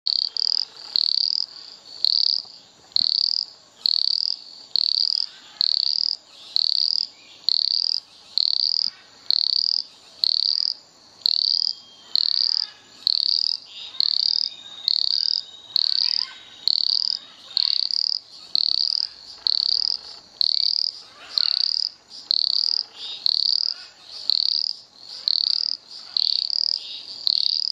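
Pseudopaludicola javae, a tiny leptodactylid frog, giving its advertisement call: a short, high-pitched note repeated evenly a little more than once a second.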